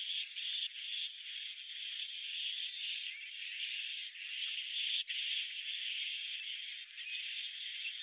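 Dense chorus of edible-nest swiftlets twittering: many high-pitched chirps and warbling trills overlapping without a break. This is the 'inap' (roosting) call used to lure swiftlets to settle and roost in a bird house.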